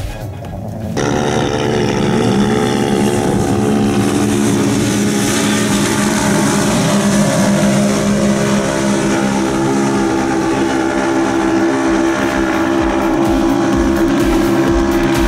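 Engines of turbocharged Polaris RZR XP 900 side-by-sides (875 cc parallel twins) running hard at sustained high revs, as under a climb up a sand dune. The steady engine drone cuts in about a second in and holds.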